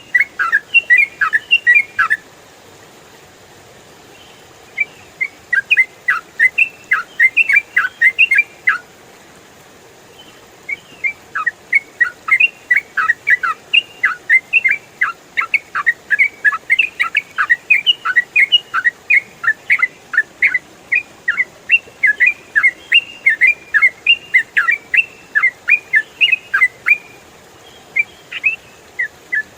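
Yellow-vented bulbul (trucukan) singing rapid, continuous phrases of short chirpy notes. The phrases come in runs of several seconds, broken by pauses of two or three seconds.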